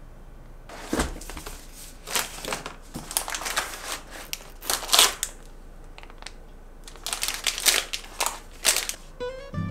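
Crinkling and rustling of the plastic wrappers on individually wrapped pineapple cakes as they are handled and lifted out of their gift box, in irregular bursts. Music comes in just before the end.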